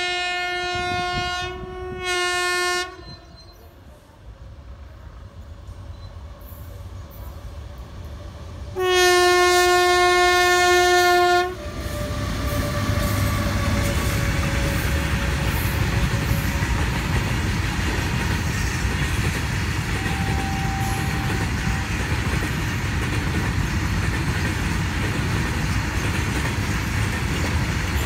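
Indian Railways WAG-9 electric freight locomotive sounding its horn: a blast ending just after the start, a short one at about two seconds, then a longer, louder blast about nine seconds in. From about twelve seconds the locomotive and its long train of tank wagons pass close by in a steady rumble and clatter of wheels on the rails.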